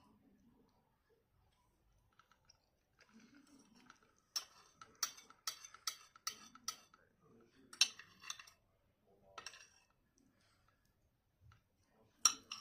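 Tableware clinking during a meal: about six sharp clinks in quick succession, then a few more, with a louder clink near the end.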